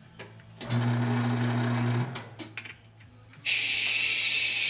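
A small power tool whirs steadily for about a second and a half. Then, about three and a half seconds in, a loud, steady, high hiss of compressed air starts and keeps going.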